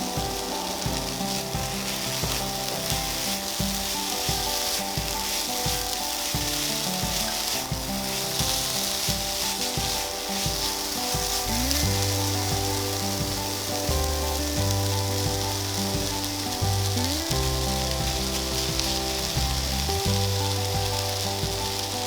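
Food sizzling steadily in hot oil in a frying pan, with background music.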